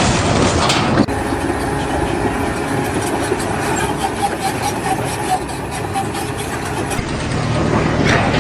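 An engine running steadily, with a dense mechanical noise; the sound changes abruptly about a second in and again near the end.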